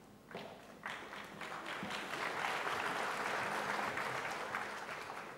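Audience applauding, starting scattered and building up over the first two seconds, then tapering off near the end.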